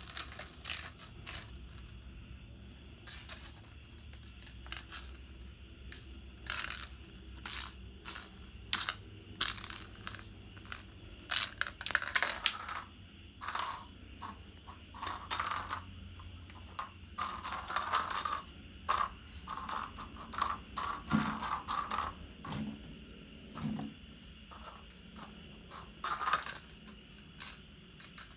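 Insects chirping steadily in the background, with many scattered sharp clicks and taps throughout and a few louder scuffs.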